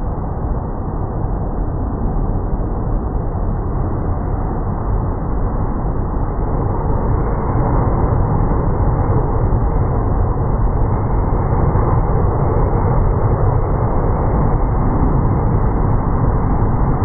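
Muffled, steady noise of breaking surf with a deep rumble and no high end, swelling slightly.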